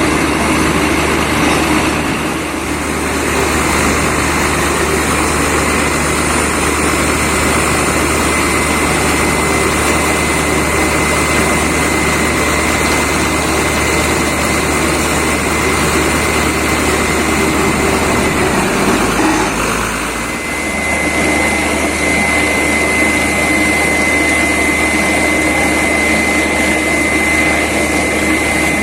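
Borewell drilling rig and its air compressor running steadily, a dense loud machine noise with a constant high whine, easing briefly twice, once near the start and once about two-thirds of the way through.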